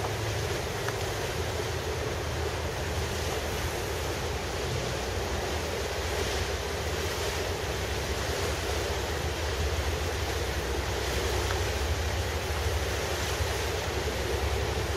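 Wind buffeting the microphone over harbour water noise, with a steady low rumble underneath, growing slightly louder in the last few seconds.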